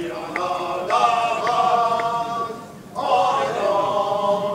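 A group of men's voices chanting together in unison on long held notes. They break off briefly about two and a half seconds in, then start again.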